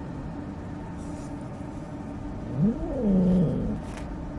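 A cat gives one drawn-out meow about two and a half seconds in, rising in pitch and then falling and holding, over a steady low hum.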